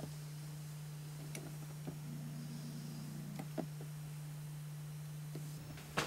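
Quiet room tone: a steady low hum with a few faint, scattered clicks, and a sharper click right at the end.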